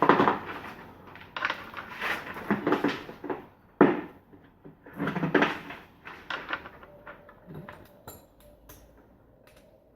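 Metal parts and hand tools knocking and clattering as the motorbike is worked on, with a sharp knock about four seconds in and only faint ticks near the end.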